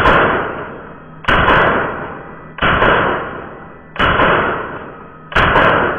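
LUVO LA-22 .22 LR semi-automatic rifle firing five shots, evenly spaced a little under a second and a half apart. Each shot rings off in the small indoor range.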